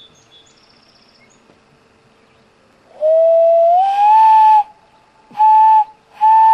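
Common loon calling: one long clear note that rises and then holds for about a second and a half, followed by two shorter notes at the same pitch.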